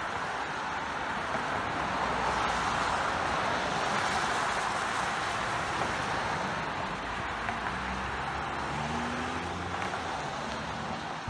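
Cars passing on a wet road, their tyres making a steady wet hiss on the pavement that swells as vehicles go by a couple of seconds in and eases off after. A low engine hum joins near the end as an SUV passes close by.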